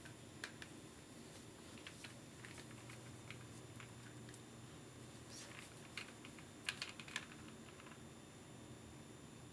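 Faint, scattered clicks and taps of hair and a curling wand being handled, over a low steady hum; a small cluster of sharper clicks comes about seven seconds in.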